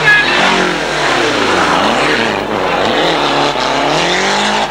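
Rally car's engine running at high revs as it takes a corner, its pitch falling and rising several times as the driver comes off and back on the throttle.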